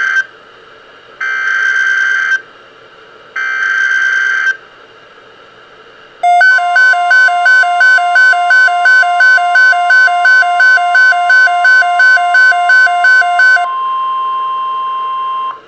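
NOAA Weather Radio Emergency Alert System tones: three short bursts of buzzing SAME data header, then the steady 1050 Hz warning alarm tone. For about seven seconds a separate electronic beep pulses over the tone, about three times a second. When the beeping stops, the steady tone carries on alone for about two seconds.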